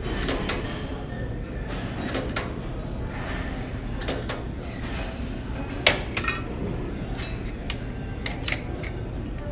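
Cable machine clinking and clanking through a set of one-leg kickbacks: the metal weight-stack plates and the ankle strap's clip knock once or twice with each rep, about every two seconds. The loudest clank comes about six seconds in.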